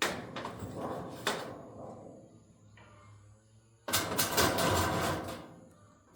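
Building-work handling noise: a sharp knock, a second knock about a second later, then a rough scraping rush lasting about a second and a half.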